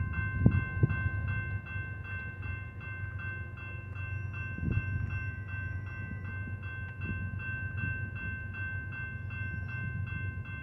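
Railroad grade-crossing bell ringing in quick, even, repeated strokes while the crossing gates lower for an approaching train. Under it runs a low rumble, with a couple of thumps in the first second and another about five seconds in.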